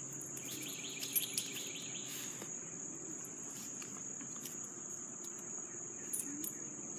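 Crickets chirping in grass: a steady, continuous high trill. About half a second in, a faster run of lower ticking chirps joins for a second and a half, and a few light clicks are scattered through.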